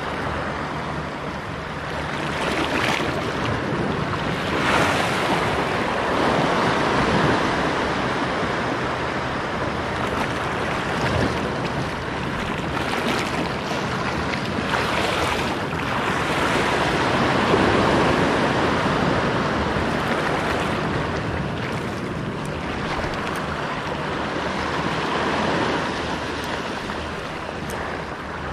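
Sea waves washing against the rocky shore, swelling and easing in slow surges.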